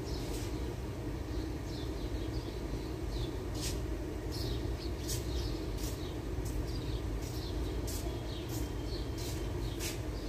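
Small birds chirping in short, sharp calls, many times and at irregular intervals, over a steady low rumble.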